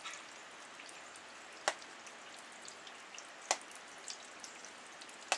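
Water dripping from ice-glazed gutters and trees: three loud drops about two seconds apart over a steady hiss and light patter of rain.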